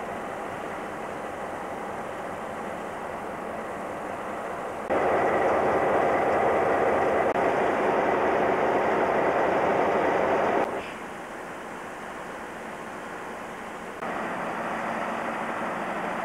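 Diesel locomotive engines running steadily, a rumbling noise with no clear rhythm. It jumps abruptly louder about five seconds in, drops suddenly again a little before eleven seconds, then steps back up near the end.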